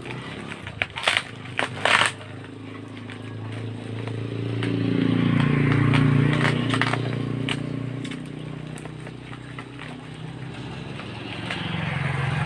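A few sharp clicks and crackles of packaging being handled, then a motor vehicle's engine that grows louder and fades away as it passes, loudest about six seconds in.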